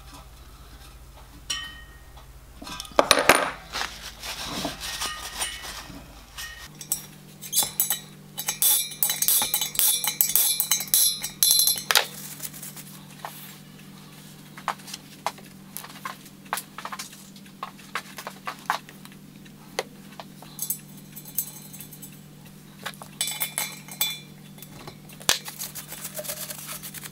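Small brass plugs with sealing washers being fitted and tightened into the tappings of a copper miniature locomotive boiler, blanking it off for a hydraulic test: irregular light metallic clinks and taps in clusters, busiest about a third of the way in.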